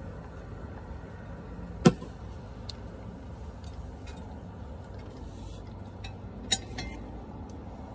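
Plastic mug and wooden spoon handled while eating oatmeal: one sharp knock about two seconds in, then a quick cluster of clicks and knocks near the end, over a steady low hum.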